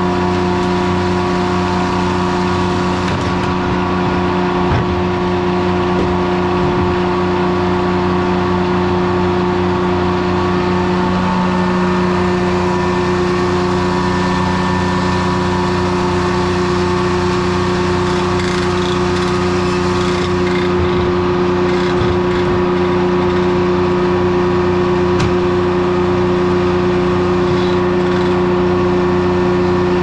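A 1953 Detroit Diesel two-stroke power unit driving a Corley circular sawmill, running steadily at a constant speed with the blade spinning free and no drop in speed from a cut. Occasional faint knocks are heard over it.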